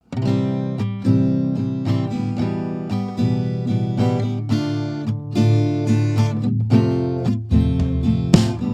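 Music: acoustic guitar being strummed, starting abruptly after silence.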